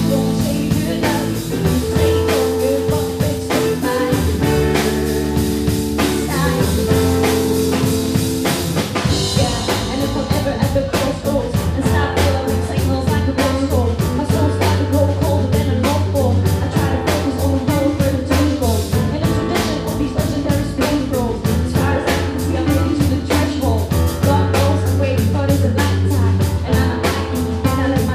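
Live rock band playing: drum kit, guitar and long sustained low notes, with the drumming getting denser about nine seconds in.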